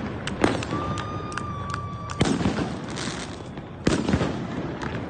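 Fireworks going off in the open: several sharp bangs a second or two apart, with smaller crackling pops between them. A steady high whistle lasts about a second and a half between the first two big bangs.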